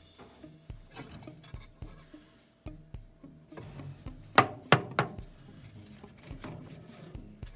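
Background music with held notes and a light, steady beat. Two loud sharp knocks come a little past halfway.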